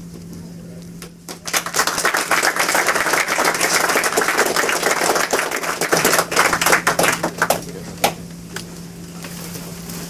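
Audience applauding. The clapping starts about a second and a half in, stays dense for about six seconds, then dies away into a few last claps.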